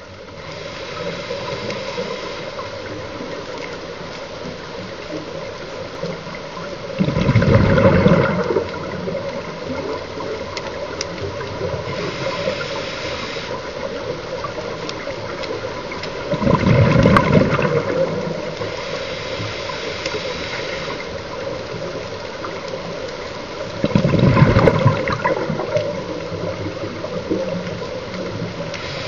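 Scuba regulator exhaust bubbles heard through an underwater camera: a steady underwater hiss broken three times, about eight seconds apart, by a loud rush of bubbling as the diver breathes out.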